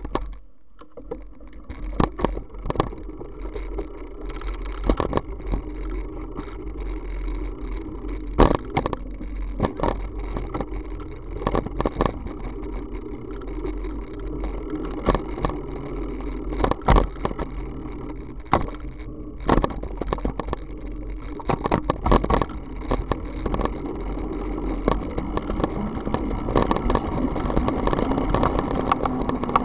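Riding a bicycle on a wet asphalt road: a steady rush of wind and rolling noise, broken by frequent irregular knocks and rattles from the bike-mounted camera over bumps, growing louder toward the end as the bike picks up speed.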